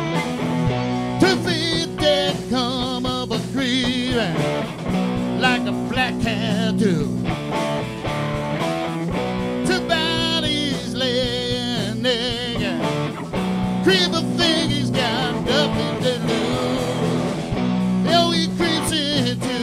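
A rock band playing live: electric guitars, bass and drums, with a man singing lead.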